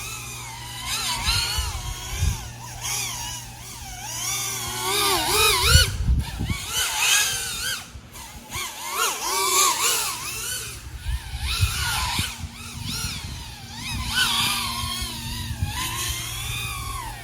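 Propellers and brushless motors of an iFlight AOS 3.5-inch quadcopter (XING 1504 3100KV motors) whining in flight, the pitch constantly rising and falling as the throttle changes, briefly dropping away about six and eight seconds in. A steady low hum runs underneath.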